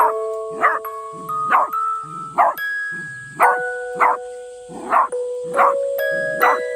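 Miniature dachshund barking again and again, about ten sharp barks, roughly one every 0.7 seconds, over background music with long held notes.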